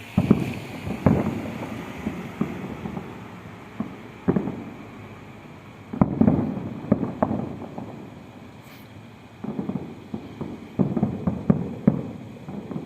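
Fireworks bursting in irregular booms, each dying away over a moment, with a quicker run of bursts in the last few seconds.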